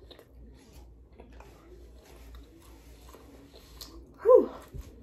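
Faint chewing with small wet mouth clicks from someone eating a steak and cheese sandwich. About four seconds in comes one short voiced sound from the eater, falling in pitch.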